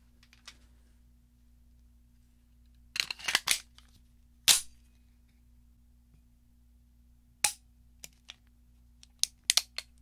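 Springfield Armory 1911 Lightweight Operator pistol being worked with snap caps: a quick cluster of metallic clicks as the magazine is seated about three seconds in, a loud snap of the slide going forward to chamber a dummy round a second later, then a single sharp dry-fire click a few seconds after that. More small clicks and a quick cluster of clicks follow near the end.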